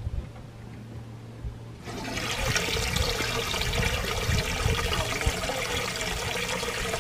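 Pontoon boat's live-well pump filling the well: water starts gushing in from the fill inlet about two seconds in and splashes steadily into the tank.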